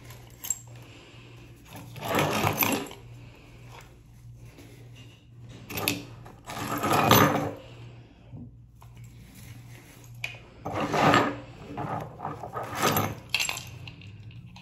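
Bunches of keychains with metal key rings and clasps jangling and clinking as they are lifted and shaken, in four bursts with quieter gaps between.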